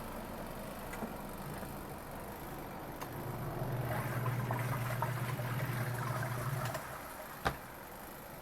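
Portable twin-tub washing machine's motor starts about three seconds in, running with a low hum over churning, splashing water, then stops suddenly. A single sharp click follows.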